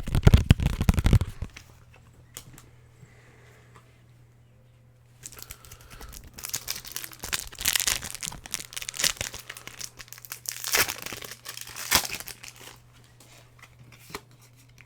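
Pokémon booster pack's foil wrapper being torn open and crinkled by hand, in a dense spell of crinkling and tearing of several seconds after a short burst of handling and a quiet pause.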